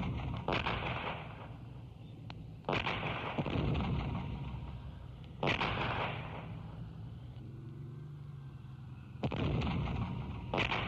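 Artillery fire: about five heavy blasts a few seconds apart, each starting suddenly and dying away over about a second.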